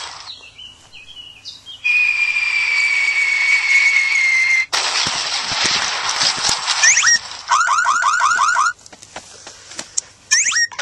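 A man imitating sound effects with his voice. A long whistling tone slides slightly down over a hiss, then comes a spell of hissing, then a quick run of about seven rising whoops like a car alarm.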